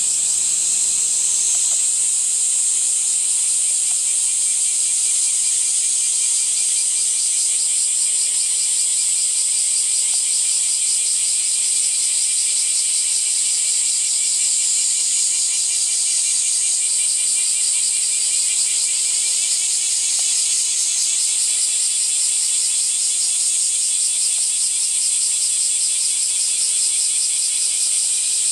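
Continuous high-pitched insect chorus, a steady shrill buzz with a fast, even pulse.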